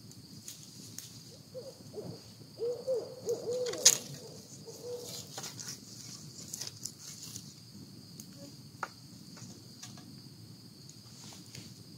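An owl hooting, a quick run of several short hoots between about one and a half and five seconds in. Campfire crackling and popping throughout, with one sharp pop just before four seconds in. A steady high insect trill underneath.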